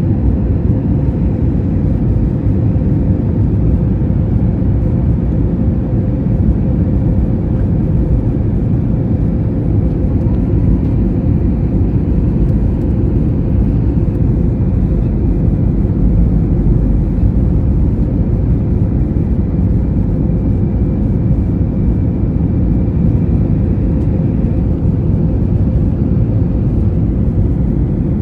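Airbus A320 cabin noise in flight: a loud, steady rumble of engines and rushing air, with a constant hum running through it and a faint higher tone joining about halfway.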